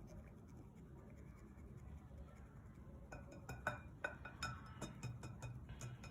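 Faint scratching and rustling of flour being sifted through a sieve, then from about halfway a run of light clinks and taps, utensils knocking against a bowl.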